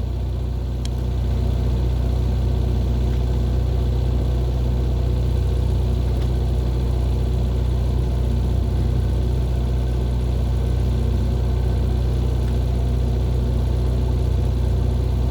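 An engine runs steadily with a low, even hum and no change in speed. There is no welding-arc crackle in this stretch.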